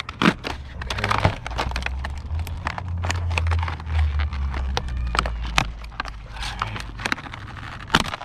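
Irregular clicks, taps and knocks of hands working with tools and materials, over a steady low rumble.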